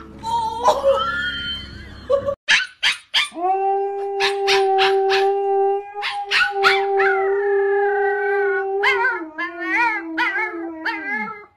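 Huskies howling: a few short yelps, then one long steady howl held for several seconds, followed by a husky puppy's shakier, wavering howls that slide down in pitch and stop near the end.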